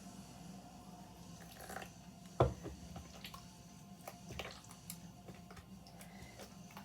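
Wet white-glue slime being squished and handled by hand: scattered small wet clicks and squelches, with one louder knock about two and a half seconds in.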